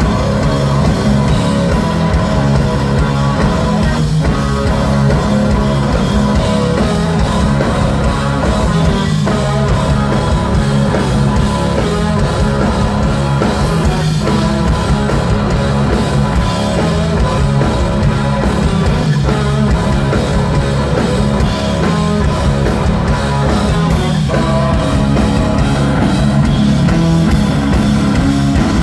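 Stoner rock band playing live and loud: heavily distorted electric guitar, bass guitar and drum kit in a steady instrumental passage with no singing.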